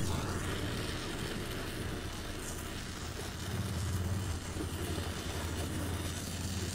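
Oxy-fuel gas torch flame running steadily, a continuous rushing hiss with a low hum underneath, as it heats a thin aluminium tube for welding with filler rod.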